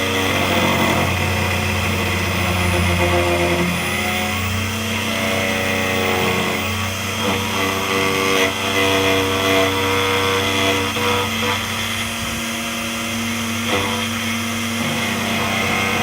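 DEFU 368A key cutting machine running, its motor humming steadily while the cutter mills a laser-cut Honda key blank as the original key is slowly traced. The pitch wavers and shifts as the cutter bites into the blank.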